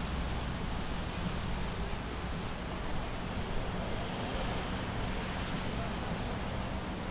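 City street ambience: steady traffic noise with a low rumble and an even wash of sound.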